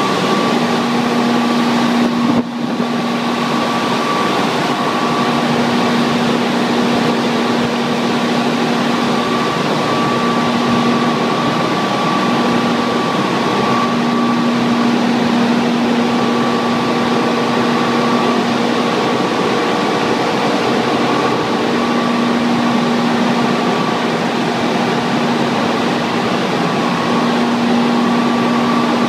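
Water turbine and generator set running at speed: a loud, steady machine noise carrying a constant hum-like tone with a higher whine above it.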